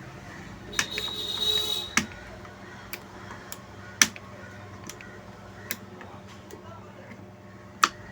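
Sharp clicks and taps of screws and metal parts being handled as a speaker amplifier is unscrewed, about five in all, with a short rasping sound about a second in.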